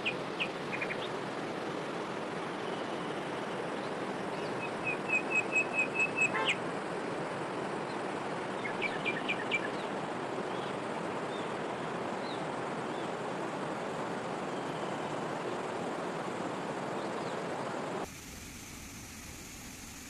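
Steady rush of flowing river water with birds chirping over it: a few chirps at the start, a quick run of about eight notes around five to six seconds in, and a shorter run of four notes around nine seconds. Near the end the sound cuts to a quieter, even hiss.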